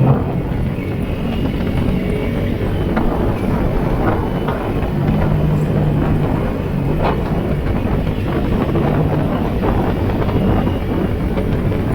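Yamaha Sniper 150 motorcycle's single-cylinder four-stroke engine running at a fairly steady pitch while riding, under a constant rush of road and wind noise.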